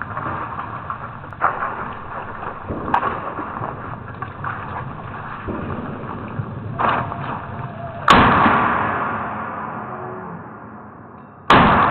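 Two slowed-down shots from a .223 AR-style rifle, about three and a half seconds apart, each a sudden loud crack that fades away slowly over a few seconds. Before them come a low, muffled jumble of range noise and a few scattered clicks, also slowed.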